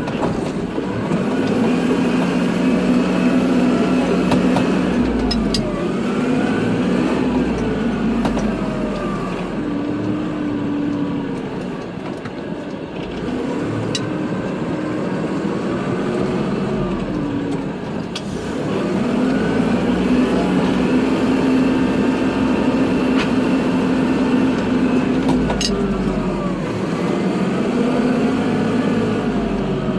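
Kubota tractor's diesel engine running while plowing snow, its pitch repeatedly rising and falling in long swells as it works. There are a few brief sharp clicks.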